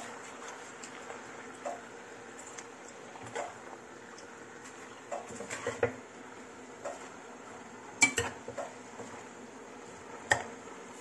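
A spoon knocking and scraping against a pot as cabbage and bok choy are stirred and tossed, in scattered clinks, the loudest about eight seconds in and again just after ten seconds.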